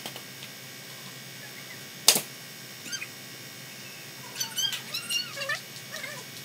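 A single sharp knock about two seconds in, then a quick run of short, pitch-bending animal calls for about a second near the end, over the steady background hum of a workshop.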